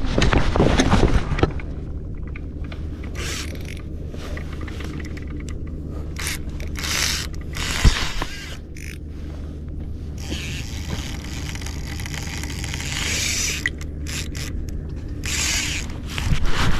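Fishing reel ratcheting as its drag gives line to a hard-running hooked fish, after a fast burst of clicks at the start. One sharp knock comes about eight seconds in, over a steady low rumble.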